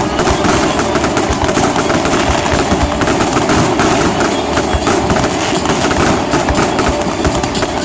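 Fireworks going off in a dense, rapid crackle of many small bangs following close on one another, at a steady loud level.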